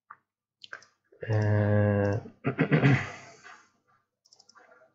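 A man's voice holds a steady hesitation sound, an 'ehh', about a second in, followed by a breathy, noisy sound. A few soft computer mouse clicks come near the start and near the end.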